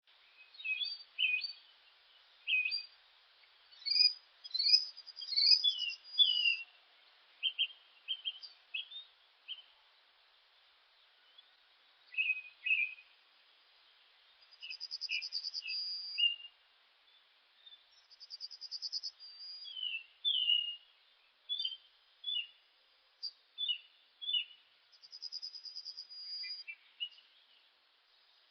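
Songbirds chirping and singing: many short, high whistled notes, with a fast buzzy trill that comes three times.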